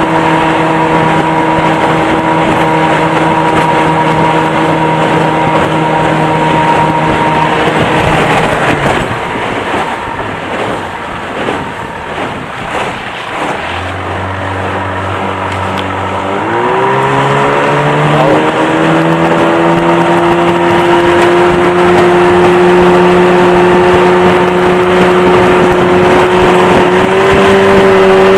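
A 1986 Yamaha 30 HP two-stroke outboard pushing a small aluminum jon boat, running steadily at speed, then dropping off about eight seconds in so that mostly wind and water noise is heard. About sixteen seconds in it picks up again, its pitch climbing steadily as the boat accelerates, with a further small rise near the end.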